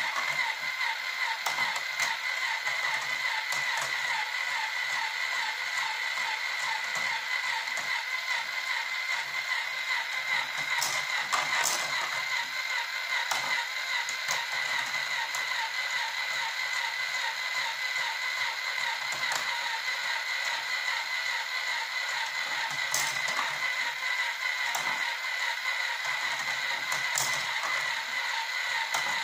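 Spacerail marble run in operation: its motorized ball lift whirs steadily while steel balls rattle along the plastic rails, with now and then a sharp click.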